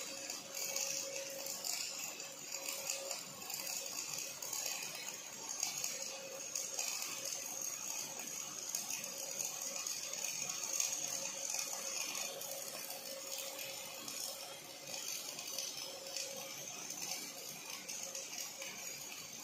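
Robotic MIG welding of steel: the wire-fed arc at the torch of an OTC welding robot crackles and sizzles steadily, over a faint steady hum.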